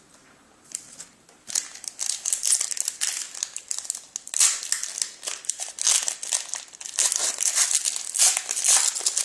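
Crinkling and crumpling of a trading-card pack wrapper being handled, starting about a second and a half in and going on as a dense, crackly rustle.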